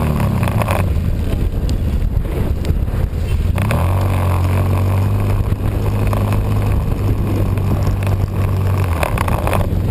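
Engine of a small off-road vehicle being ridden. Its pitch wavers for the first few seconds, rises at about three and a half seconds, holds steady under throttle, and eases off near the end.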